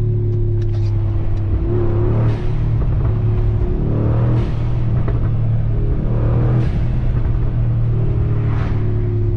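Brabus-tuned 4.0-litre twin-turbo V8 of a Mercedes G63-based pickup, running steadily under way, heard inside the cabin. Windscreen wipers sweep with a swish about every two seconds.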